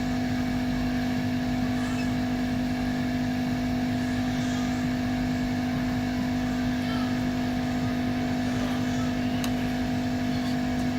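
Steady mechanical hum: one constant low tone with a couple of fainter higher tones over a low rumble, unchanging throughout.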